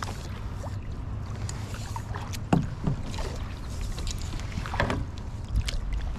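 Kayak paddle strokes, the blade dipping and splashing in the water, strongest twice, over a steady low rumble of wind on the microphone.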